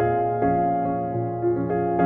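Background music: soft piano or electric piano playing gentle sustained notes and chords.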